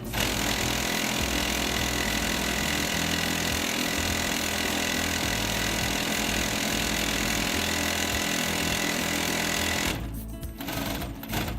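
Heavy-duty 300U194A walking-foot, compound-feed sewing head running at speed, a steady dense stitching noise that stops about ten seconds in.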